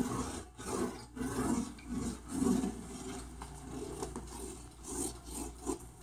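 Cockatoo scratching and chewing inside its quilt den: irregular rasping and scraping strokes, several a second.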